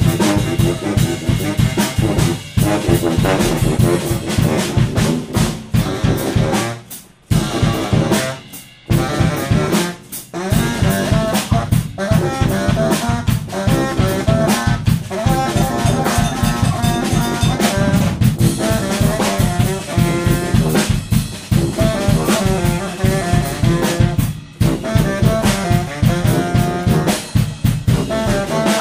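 Live brass band music: a sousaphone playing over a drum kit keeping a steady beat. The band drops out briefly a few times about seven to ten seconds in.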